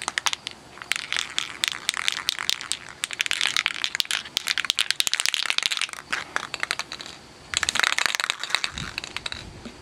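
Aerosol spray-paint can (Krylon Fusion satin) being shaken hard, its mixing ball rattling inside in a fast, dense run of clicks that mixes the paint before spraying. The rattling pauses about seven seconds in, then comes back in a short burst near the end.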